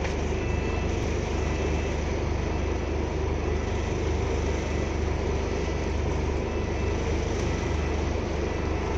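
Scania N230UD double-decker bus's five-cylinder diesel engine running with a steady low drone, heard from the upper deck as the bus moves off slowly.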